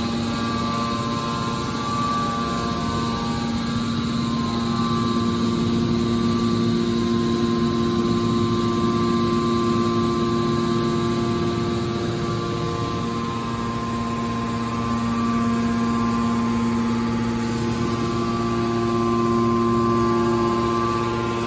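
Hydraulic car baler's power unit running: a steady machine hum with several constant tones over a noisy rush, its tone shifting about halfway through.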